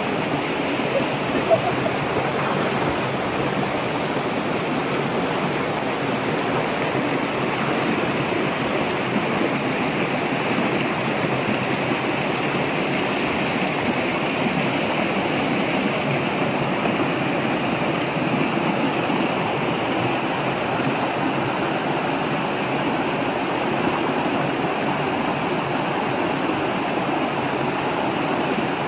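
Shallow rocky mountain stream rushing steadily over boulders and small cascades. A single short, sharp sound stands out about a second and a half in.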